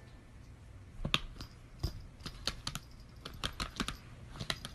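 Typing on a MacBook laptop keyboard: irregular key clicks begin about a second in and come several a second.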